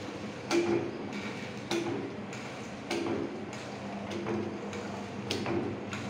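Automatic Velcro and webbing cutting machine punching round shapes from tape, one sharp clack per cut about every 1.2 s (five cuts), over the steady hum of its motor.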